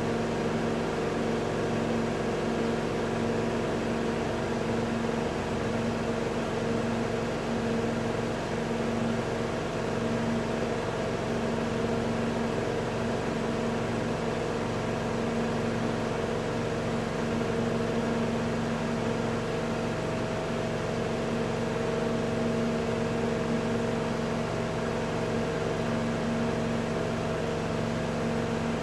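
Melag Vacuclav 31B steam autoclave running a test cycle: a steady mechanical hum with several unchanging tones, no starts or stops.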